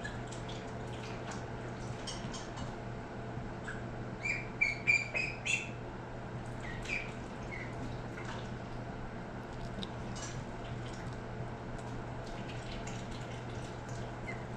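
Ducks calling: a quick run of short, high peeping calls about four to six seconds in, the loudest part, with scattered single calls through the rest. A steady low hum runs underneath.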